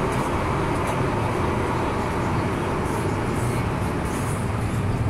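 Steady rumble and rail noise inside a moving MTR M-Train electric multiple unit running through a tunnel.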